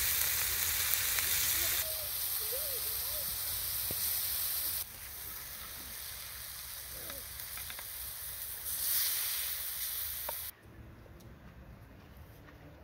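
Chops and then vegetables sizzling on a hot stone slab over a wood fire, a steady hiss that changes abruptly at several cuts. About ten seconds in the sizzling stops and it goes much quieter.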